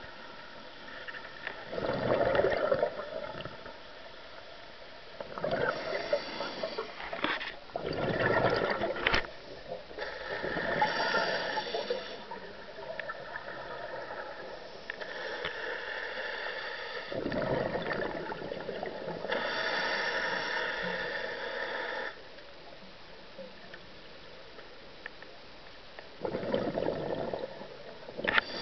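Scuba diver breathing underwater through a regulator: the hiss of each inhalation alternates with a rushing burble of exhaled bubbles, in a slow cycle of breaths with a longer pause before the last exhale.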